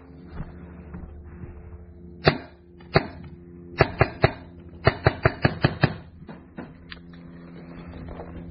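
Magazine-fed paintball marker firing sharp shots. Two single shots come first, then a quick group of three, then a rapid string of about seven, followed by a couple of fainter pops.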